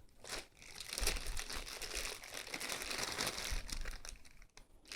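Packaging crinkling and rustling as it is handled and pulled away from a small guitar effects pedal. It is a dense, crackly run of fine crinkles lasting a few seconds.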